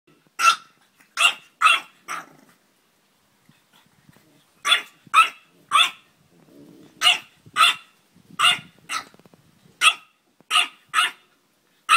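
Puppy yapping: about sixteen short, high-pitched barks in quick clusters of two to four, with a pause of about two seconds after the first four.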